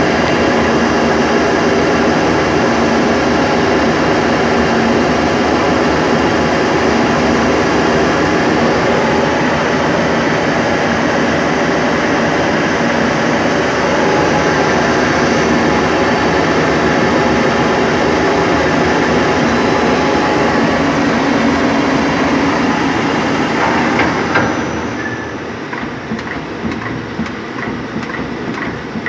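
CNC lathe turning a metal part: the spinning chuck and the cut make a loud, steady mechanical running sound. About 24 seconds in there is a short knock, the cutting stops and the sound drops to a quieter machine run with light, rapid ticking.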